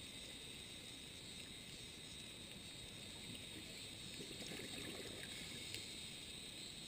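Faint underwater ambience: a steady hiss with a thin high whine and scattered faint clicks and crackles.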